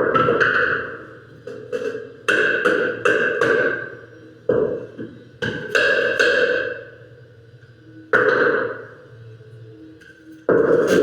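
Hammer blows on wood, in irregular runs of quick strikes with pauses between. Each blow rings briefly at the same pitch.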